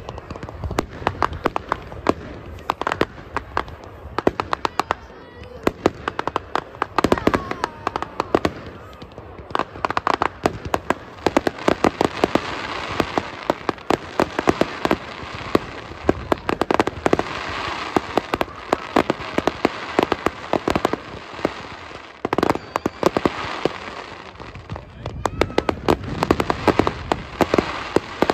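Fireworks display: aerial shells bursting in a rapid, continuous run of bangs and crackles, busiest in the middle and again near the end.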